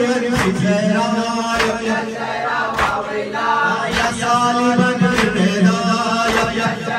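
Group of men chanting a nouha (Shia lament) together. Sharp slaps of chest-beating matam land in time with the chant, about one every second and a bit, six in all.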